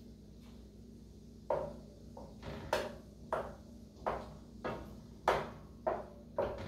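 Wooden spoon knocking and scraping against a frying pan while stirring onions in melted butter: a string of short knocks, roughly one every half second to second, starting about a second and a half in.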